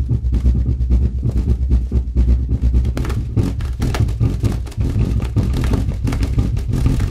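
Deep, steady low hum from a loudspeaker driven with bass tones, with rapid crackling and ticking of wet paint rattling and spattering on it; the crackling grows busier about halfway through.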